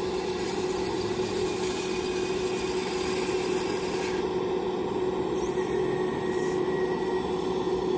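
Remote-controlled scale Kobelco excavator running as it works its boom and bucket: a steady mechanical hum with one held tone.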